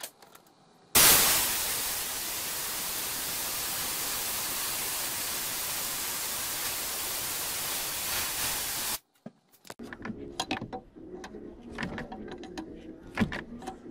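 Compressed-air vacuum fluid extractor hissing steadily as it sucks brake fluid out of the brake fluid reservoir; the hiss starts suddenly about a second in and cuts off abruptly about eight seconds later. Faint scattered clicks and knocks follow.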